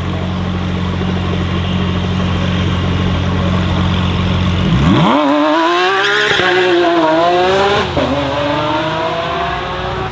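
Lamborghini Aventador's V12 holding a steady note at the line, then launching hard about halfway in with the rear tyres spinning. The revs climb sharply, drop with two quick upshifts and climb again as the car pulls away.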